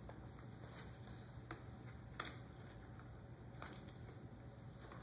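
Quiet room tone with a steady low hum and a few faint, short clicks and rustles of hands handling a tool, the clearest about two seconds in.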